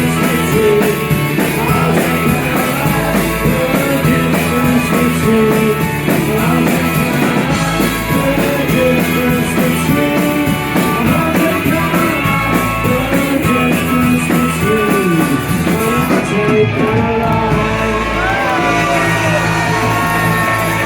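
A live rock band playing loudly, led by electric guitars.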